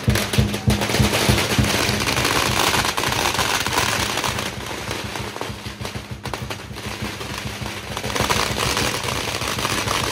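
A long string of firecrackers going off in a rapid, continuous crackle of small bangs, slightly thinner around the middle.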